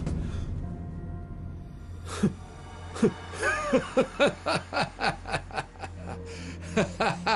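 A man laughing out loud in a rapid run of short "ha" bursts, starting about three seconds in, over low, sustained background music.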